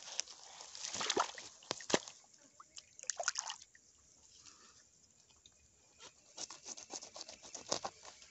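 Pond water splashing and dripping as a freshly caught mojarra is dipped and rinsed by hand at the bank, in short irregular bursts with a quieter lull in the middle.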